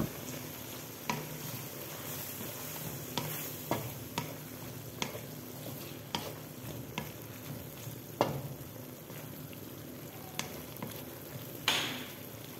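A spatula stirring squid gravy in a metal kadai, scraping and knocking against the pan about every second at uneven intervals, with one longer scrape near the end. Under it the gravy sizzles steadily as it cooks down on a medium flame.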